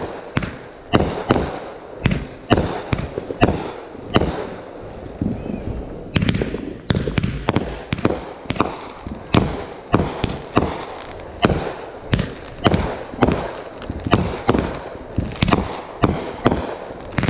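Fireworks going off in a rapid run of sharp bangs, about two or three a second, each with a short echo trailing after it.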